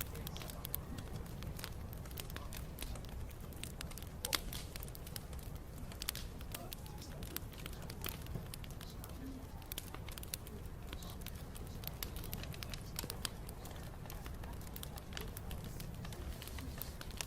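Wood bonfire crackling: irregular sharp pops and snaps over a low steady rumble of the burning fire.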